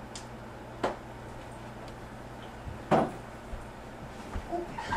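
Quiet room tone with a steady low hum, broken by two short knocks, one about a second in and a louder one near three seconds.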